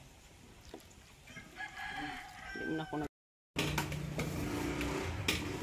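A rooster crowing once, about one and a half seconds in, lasting around a second. After a brief dropout, a steady low hum follows.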